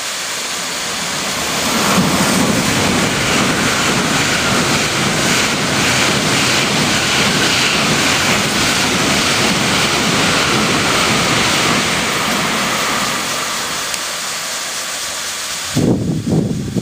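N700 series Shinkansen passing through the station at speed on snowy track: under a steady hiss from the track's snow-melting sprinklers, a loud, even rushing of wheels and air builds about two seconds in, holds for some twelve seconds, then eases. Near the end, gusts of wind buffet the microphone in uneven low thumps.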